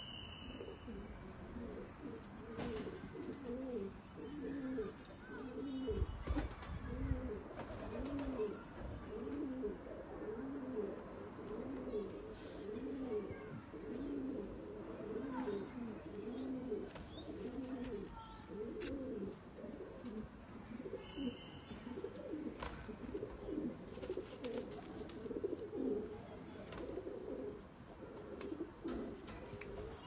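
Domestic pigeons cooing steadily, one rolling coo after another, with a few faint clicks and two brief high chirps.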